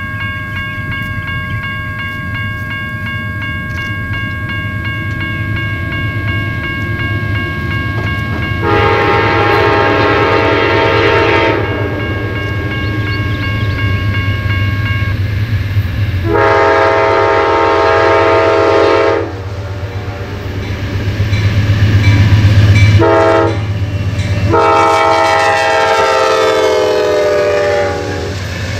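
Amtrak passenger train's horn sounding the grade-crossing signal as it approaches: long, long, short, long, the last blast falling in pitch as the locomotive passes. Diesel engine rumble builds underneath, with wheels clattering on the rails near the end.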